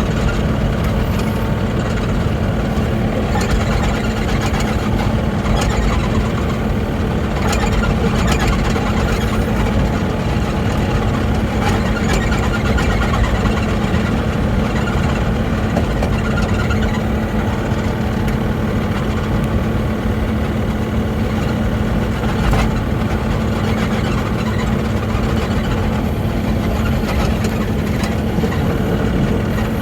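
Mini excavator engine running steadily, with a few faint knocks along the way.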